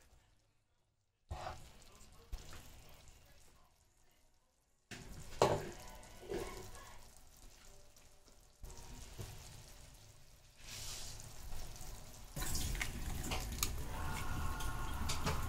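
Pan of pilchards frying and sizzling as an egg is added, with a couple of sharp knocks about five and six seconds in. The sizzle gets louder near the end.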